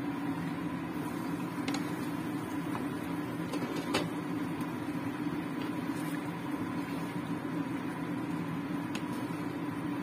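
Steady hum of a running kitchen appliance, with a few light clicks of a wooden spatula against the wok as the curry is stirred.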